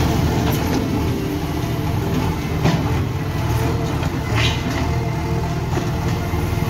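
Diesel engines of a tractor and a JCB 3DX backhoe loader idling close by, a steady low drone. A couple of brief sharper sounds come through about three and four and a half seconds in.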